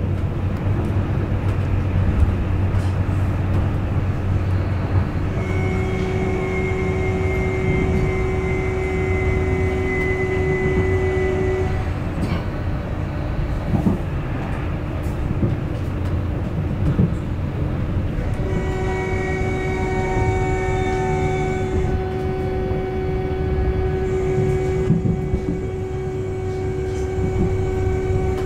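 Hamburg U-Bahn DT4 metro train running, heard from inside the carriage: a steady rumble of wheels on track. A steady electric whine from the drive comes in about five seconds in, drops out around twelve seconds, and returns from about eighteen seconds.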